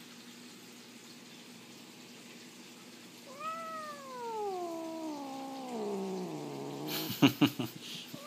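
A domestic cat lets out one long yowl, starting about three seconds in and sliding steadily down in pitch from a high meow to a low moan, a protest at being held. A few sharp, loud knocks follow about seven seconds in.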